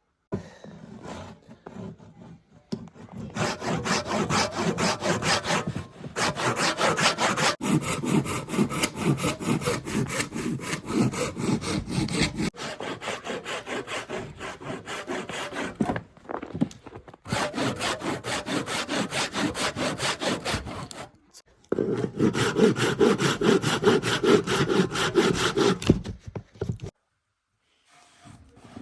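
Hand saw cutting through wood in quick, even back-and-forth strokes, in several bouts broken by short pauses.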